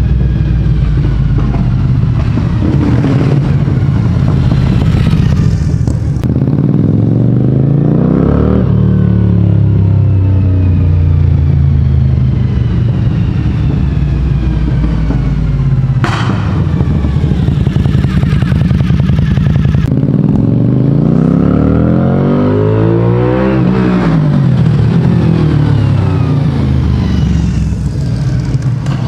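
Suzuki TL1000S 90-degree V-twin motorcycle engine and exhaust, revving and sweeping past twice, about eight and twenty-three seconds in, echoing in a road tunnel. A single sharp crack comes about halfway through.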